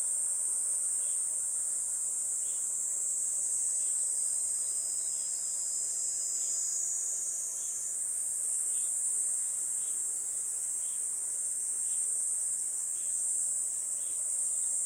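Steady, high-pitched chorus of insects calling, unbroken throughout, with faint regular chirps beneath it about once every half second or so.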